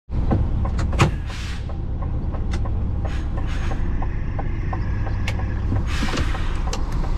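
DAF lorry's diesel engine running, heard inside the cab as a steady low rumble, with a light regular ticking about twice a second from the turn indicator and a sharper click about a second in.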